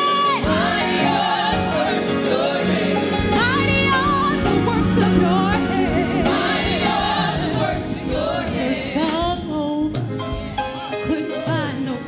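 Gospel choir singing with a lead vocalist running a melody over the held choir chords, with keyboard accompaniment; the music eases slightly in the last few seconds.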